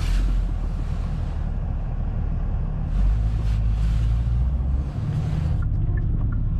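Genesis G70 driving: a steady low rumble of engine and road noise, its pitch shifting about three seconds in and again near five seconds.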